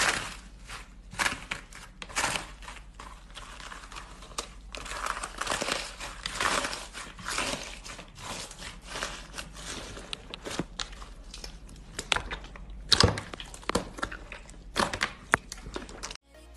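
Slime being squeezed, stretched and poked by hand, giving irregular crackles, sharp pops and sticky squishes. Electronic music starts just before the end.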